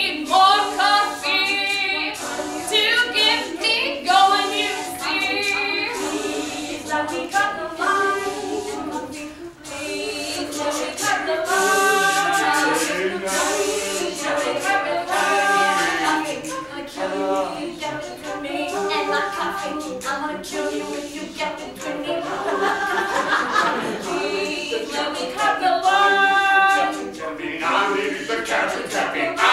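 A group of voices singing an improvised a cappella soundscape of a coffee shop, several overlapping parts repeating short phrases. A hiss joins in about eleven seconds in.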